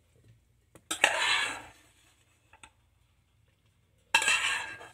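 A spatula scraping and clattering against a frying pan and a serving bowl while fried potatoes are scooped out: two short scrapes with a sharp start, about three seconds apart, and a few light clicks between them.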